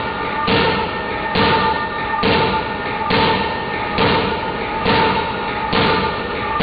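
Large hydraulic forging hammer striking red-hot steel in a steady rhythm, about seven heavy blows at a little under one a second, over a steady whining tone.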